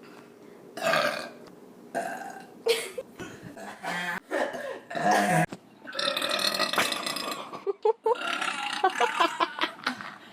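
Human burps, one after another: several short burps, then one long drawn-out burp about six seconds in, followed by a run of short choppy ones near the end.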